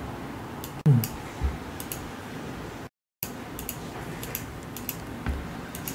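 Scattered computer mouse and keyboard clicks, sharp and irregular, over a steady low hiss.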